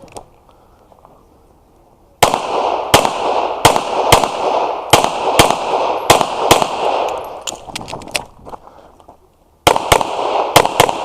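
Pistol gunfire on a shooting range: a fast string of shots, about two a second, begins about two seconds in and runs to about eight seconds, then after a short pause a second quick string starts near the end.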